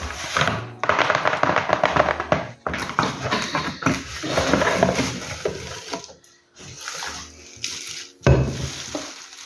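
Packaging rustling and crinkling in stretches as a boxed cup is unwrapped, over background music.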